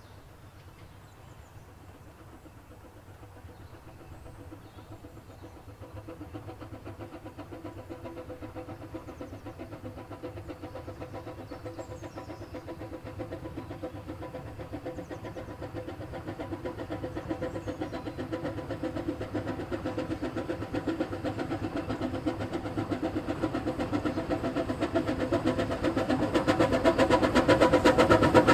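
Narrow-gauge steam locomotive approaching with its train of coaches, its working beat and running noise growing steadily louder as it draws near. Faint bird chirps in the first half.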